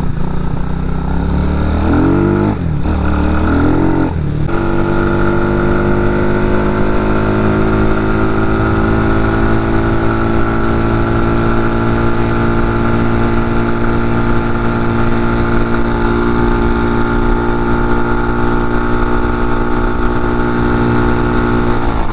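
A swapped-in CG250 single-cylinder four-stroke motorcycle engine accelerating hard, its pitch rising and dipping briefly twice at the gear changes. After about four and a half seconds it settles into a long, steady high-rpm drone at cruising speed near its top end, held back by a stock exhaust that the rider says is definitely restricting it.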